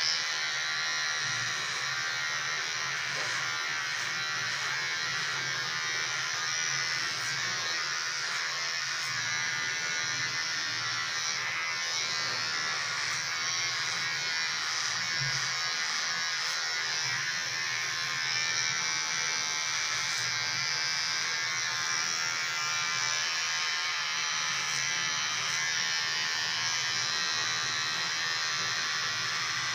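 Electric hair clipper running with a steady buzz as it cuts the hair on the side of the head down short.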